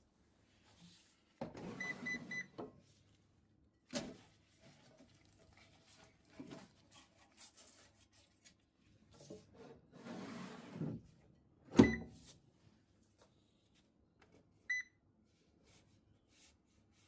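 Air fryer in use: a quick run of electronic beeps over clattering and scraping, which is likely the basket being handled, then a loud sharp clack and a single beep near the end.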